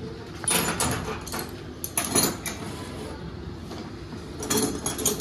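Metal hand tools clinking and rattling as they are handled, in three short bouts: about half a second in, about two seconds in, and again near the end.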